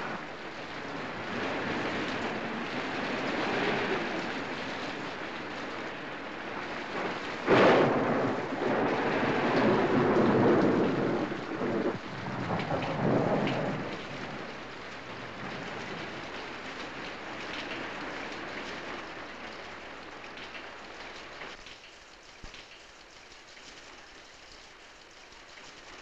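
Heavy rain pouring down steadily, with a sudden crack of thunder about seven seconds in that rumbles on for several seconds. The rain grows quieter near the end.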